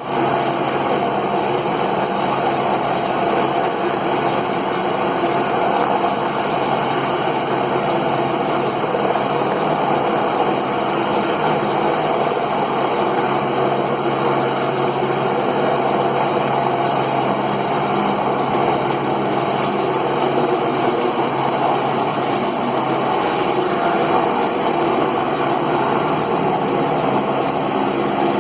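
Helicopter running steadily, a constant engine and rotor noise with several steady tones that does not change.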